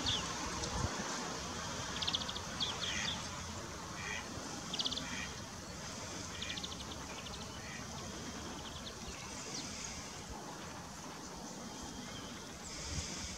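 Birds calling: short, high rattling trills and chirps come every second or two, most often in the first half and again near the end, over steady background noise.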